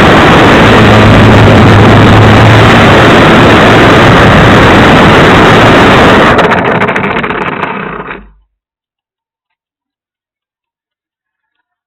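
Electric motor and propeller of a Baby Blender RC foam plane, with rushing air, heard very loud and overloaded on the plane's onboard camera microphone. The noise sinks about six seconds in, sputters and cuts off suddenly a couple of seconds later.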